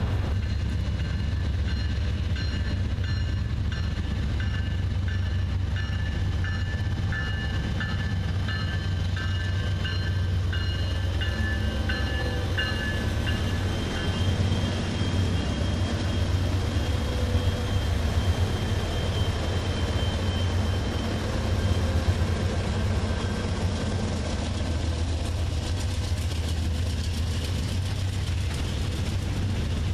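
Norfolk Southern freight train passing close by: the lead diesel locomotives' engines drone low and steady as they go by, with a high ringing tone repeated about twice a second during the first half. Then a line of hopper cars rolls past.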